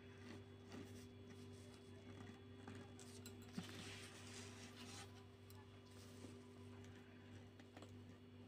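Near silence: a low steady hum of room tone, with a brief soft rustle about four seconds in.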